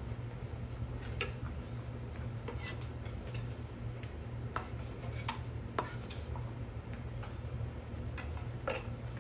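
A knife scraping and tapping on a wooden cutting board as chopped vegetables are pushed off it into a bowl. The light scrapes and clicks are scattered irregularly over a steady low hum.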